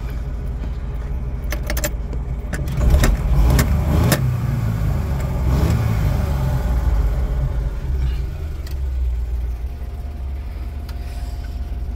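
Kia Towner mini truck engine running on a swapped-in 250cc motorcycle carburetor. It is revved up a few seconds in and held higher for several seconds, then drops back to a steady idle.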